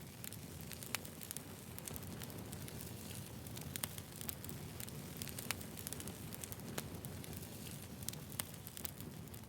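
Campfire burning: a steady low rumble of flames with frequent sharp, irregular crackles and pops of burning wood.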